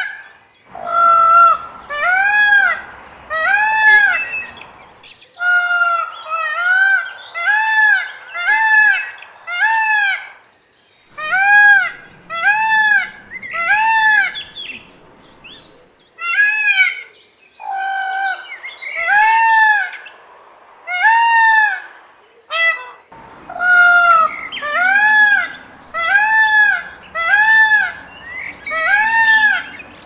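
Indian peafowl (peacock) calling: loud, honking calls that rise and fall in pitch, given in quick series of one to two a second. The calling comes in several bouts that stop and start abruptly.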